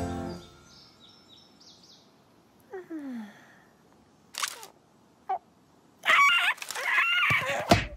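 Cartoon sound effects: a few faint chirps, then a falling whistle-like glide about three seconds in and two short squeaks. In the last two seconds a cartoon bird character gives a loud, wavering squawk.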